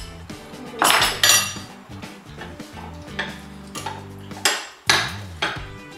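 Metal spoons clinking and scraping against ceramic bowls as people eat, several separate clinks with the loudest about a second in, over soft background music.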